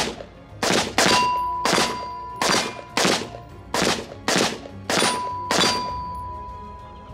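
AR-15 rifle firing about nine single shots at a steady pace, roughly one every two-thirds of a second. Steel targets ring with a clear, fading tone after several of the hits.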